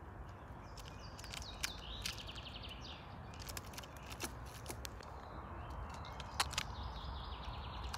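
Sharp irregular clicks and scratches of a red squirrel's claws gripping tree bark as it moves on the trunk. Birds sing in the background in two short quick trills, over a steady low rumble of outdoor noise.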